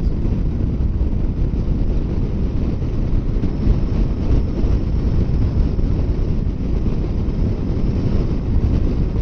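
Wind noise on the microphone of a Kawasaki Versys 650 motorcycle riding at highway speed. It is a steady, heavy low rumble of rushing air, with the bike's engine and road noise lost beneath it.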